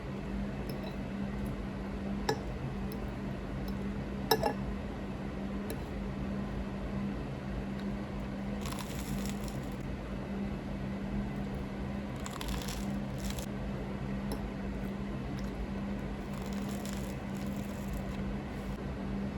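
Food being handled in a kitchen: a few light clicks and knocks, the sharpest a little over four seconds in, and three short soft squishing or rustling noises later on. A steady low electrical hum runs underneath.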